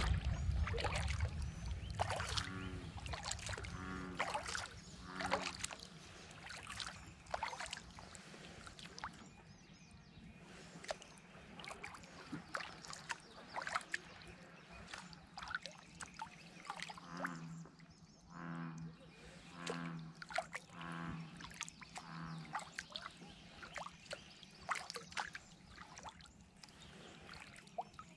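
Kayak paddling on a calm lake: water trickling and dripping off the paddle, with many small splashes and ticks. Twice, a low call sounds in a short series of four or five pulses.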